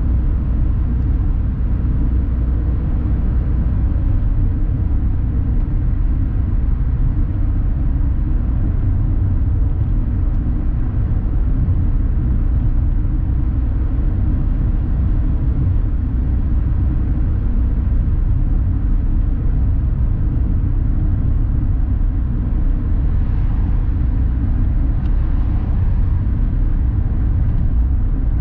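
Steady in-cabin road and engine noise of a 2020 Toyota Aygo with its 1.0-litre three-cylinder engine, cruising at about 85 km/h: an even low rumble of engine and tyres on the road.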